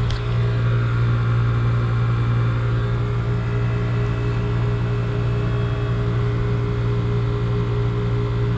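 1987 Bryant one-and-a-half-ton heat pump running through a defrost cycle, its compressor giving a loud, steady hum. A sharp click with a short falling hiss comes right at the start.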